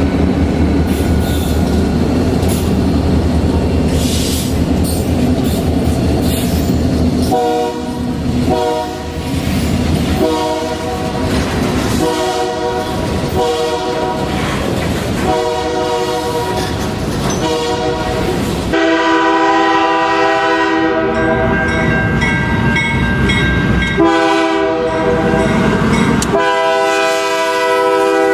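Diesel freight locomotive rumbling past with wheel and rail clatter, then its Nathan K3-series three-chime air horn sounding a chord in a series of blasts: two short ones, then several long ones with a brief pause near the end.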